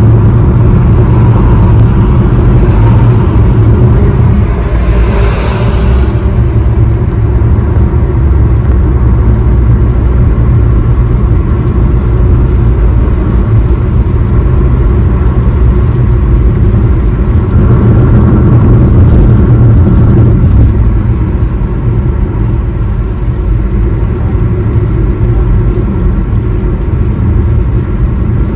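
Steady low rumble of road and engine noise heard inside the cabin of a car cruising on a highway. A brief brighter swell of noise comes about five seconds in.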